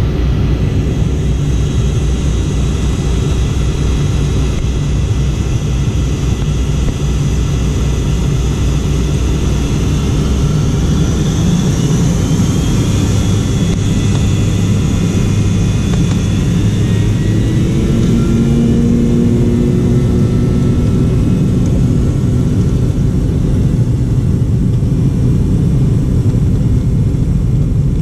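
Cabin noise of an MD-88 taxiing: a steady low rumble from its tail-mounted Pratt & Whitney JT8D turbofans and the airframe rolling over the pavement, heard from a seat over the wing. A few faint engine tones rise slightly in pitch a little past the middle.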